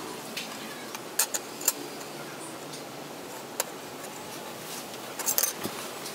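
A few sharp clicks and taps of metal being handled on a workbench: a circular saw blade and a cutting disc shifted about as the blade is marked out. Three isolated clicks come in the first two seconds, one more midway, and a quick cluster of taps near the end.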